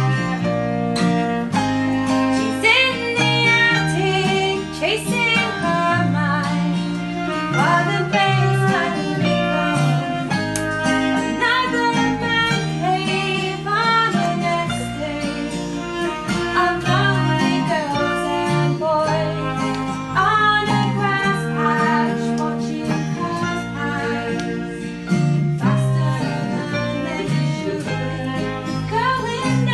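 A small acoustic band playing a song live, with bass, piano and viola under a female lead voice singing.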